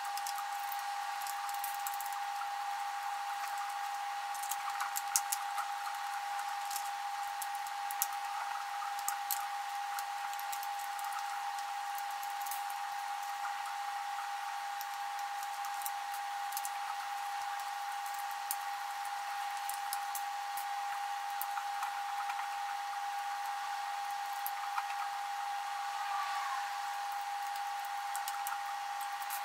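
A steady high-pitched whine with scattered light clicks and ticks of small screws and plastic parts being handled as a drone's top cover is taken apart.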